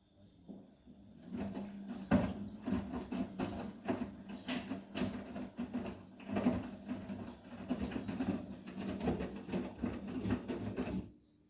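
Washing machine drum turning during a hot cotton wash: a steady motor hum under the irregular swish and patter of wet laundry tumbling. It starts about a second in and stops abruptly near the end, as the drum pauses between turns.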